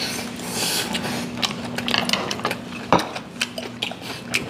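Eating at a table: a string of sharp, irregular clicks and taps of chopsticks against dishes, with chewing, over a low hum that comes and goes.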